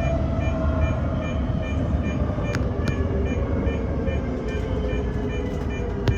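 Toyo Rapid Railway 2000 series electric train running: a steady rumble of wheels on the rails with a motor whine slowly falling in pitch. Sharp clicks come about two and a half seconds in, again just under three seconds in, and once near the end.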